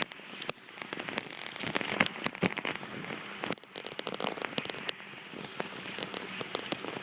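Bicycle riding over rough, stony ground: a steady crunch from the tyres, broken by many sharp clicks and knocks as the bike and the handheld recording device rattle over stones.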